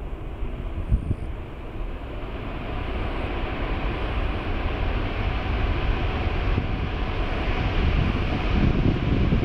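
The four GEnx-2B turbofans of a Boeing 747-8 freighter running at high power as it rolls along the runway: a steady jet rushing noise that grows louder as the aircraft nears, with low wind buffeting on the microphone.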